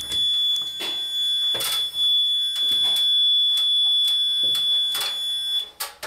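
Fire alarm control panel's fault buzzer sounding one steady high-pitched tone, set off by a smoke detector head being removed from its base; the tone cuts off suddenly near the end. Several short clicks and knocks of handling sound over it.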